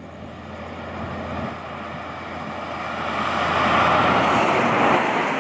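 Road train truck approaching and passing close by at highway speed, its engine and tyre roar growing steadily louder and loudest as the trailers go past near the end.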